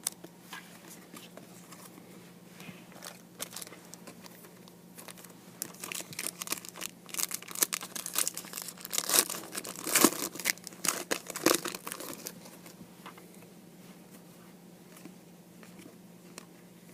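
Foil trading-card pack crinkling and tearing open, with cards flicking and sliding against each other; the handling is busiest in the middle, with a faint steady hum underneath.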